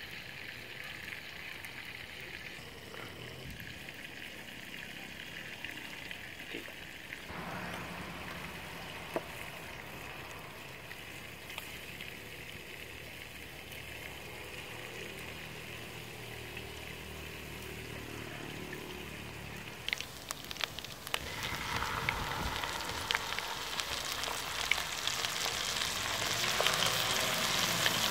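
Hot fat sizzling steadily in a frying pan. About twenty seconds in there are a few clicks, and the sizzle grows louder as chicken thighs go in to fry.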